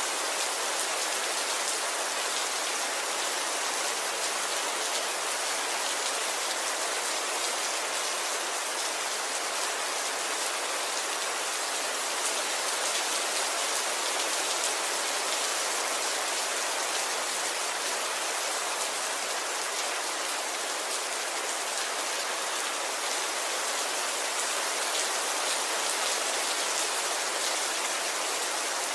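Steady rain falling, an even hiss of drops with no change throughout.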